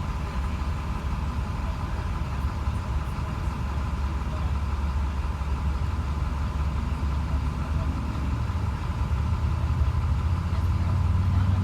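Vehicle engine idling with a steady low rumble, growing a little louder in the last few seconds.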